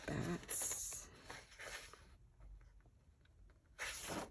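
Paper rustling from a coloring book's pages being handled: a burst of rustling in the first second, faint light ticks after it, then a page turning over near the end.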